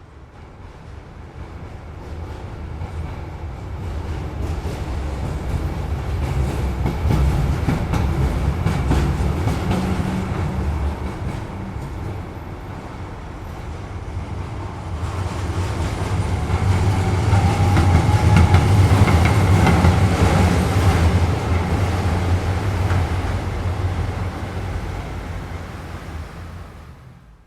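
A train passing at fairly high speed: a heavy rumble with wheels clicking over the rails. It builds, eases about halfway through, swells to its loudest about two-thirds of the way in, then fades away.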